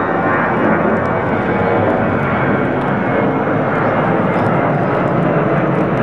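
Jet airliner climbing out just after takeoff, its engines at climb power making a loud, steady rushing noise.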